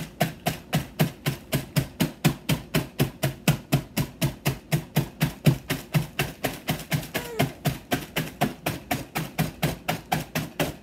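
Handle end of a metal spoon pounding Oreo cookies inside a closed Ziploc bag on a table, crushing them into crumbs. Steady, even thuds at about four a second.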